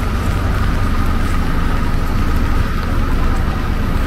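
Road traffic: vehicle engines running with a steady low rumble, under an even hiss of rain and wet roads.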